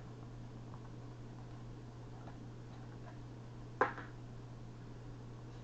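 Light plastic clicks and taps from handling the plastic drone landing gear and drone, with one sharper click a little under four seconds in, over a steady low hum.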